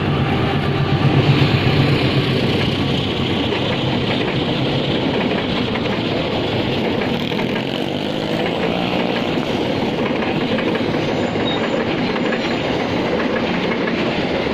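A train passing on the rails, a steady rumble of wheels on track that is loudest between one and two seconds in.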